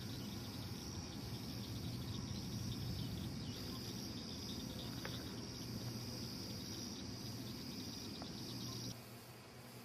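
Faint, steady high-pitched trilling of crickets over a low steady hum. The trilling cuts off near the end.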